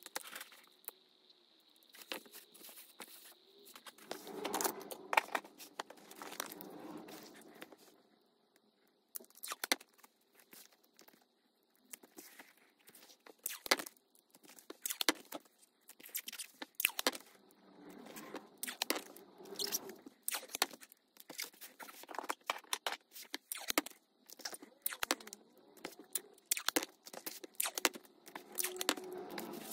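Hands and tools working materials at a leather-crafting bench: irregular clicks and taps with stretches of scraping and rustling.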